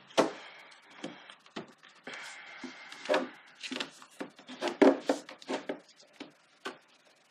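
Eyeshadow palettes being shuffled by hand in a drawer: irregular clacks and taps as they knock against each other and the drawer sides, with a brief sliding rub about two seconds in.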